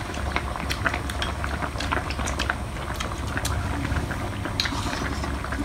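A lẩu mắm hot pot bubbling on a lit burner, with many small clicks of chopsticks and spoons against bowls as people eat.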